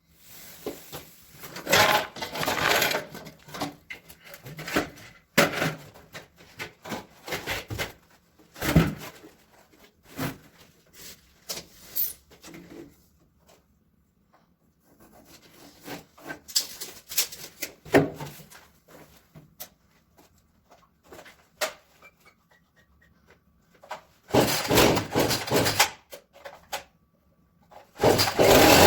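Wooden pieces being handled in a small room: irregular knocks, thumps and short scrapes of wood against wood and other surfaces, with a few pauses between them.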